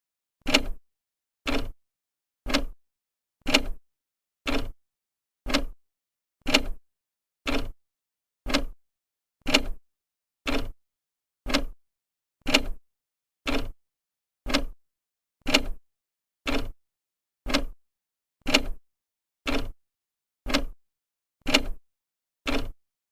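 An old clock ticking, its second hand stepping once a second: each tick a short click with silence between.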